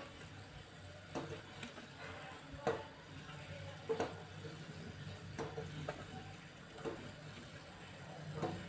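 Fried gulab jamun balls dropped one at a time into sugar syrup in an aluminium pot: about seven faint soft plops and light knocks, one every second or so, over a low steady hum.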